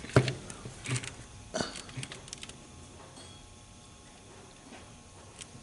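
Light clicks and taps of a transmission valve body being worked into place against the case, several in the first two seconds, then only faint room tone.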